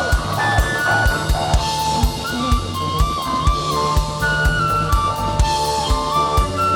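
Live band playing an instrumental passage: a drum kit keeps a steady beat, with kick-drum strokes about three times a second and snare hits, under a lead melody of long held notes that slide up and down in pitch.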